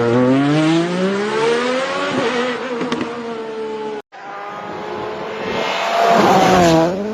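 Rally car engine revving hard, its pitch climbing for about two seconds and then easing off. After a sudden break about four seconds in, another car engine swells loudly and drops in pitch as it goes past.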